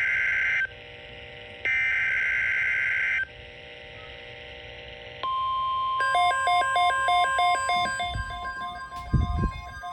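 NOAA Weather Radio SAME alert header: two bursts of harsh data screech, the first ending just after the start and the second running from about 2 to 3 seconds in. After a short gap the steady 1050 Hz weather radio alert tone starts about 5 seconds in. From about 6 seconds a repeating beeping melody plays over the tone, with two low thumps near the end.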